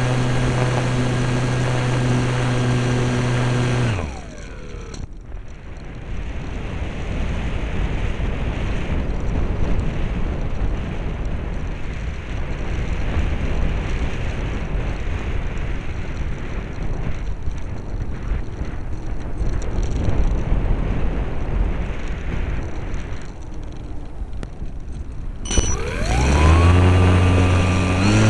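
Radio-control airplane's motor and propeller heard from on board: a steady drone that is cut about four seconds in and winds down, leaving a long stretch of wind rushing past the airframe as the plane glides with the power off. Near the end the motor spools back up in rising pitch and settles into a steady drone again.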